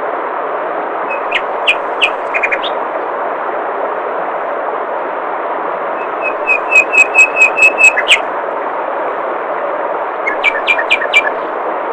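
Steady rush of flowing water with a songbird calling over it: a few scattered high notes, then a fast run of about eight repeated whistled notes about six to eight seconds in, and a shorter run of about five notes near the end.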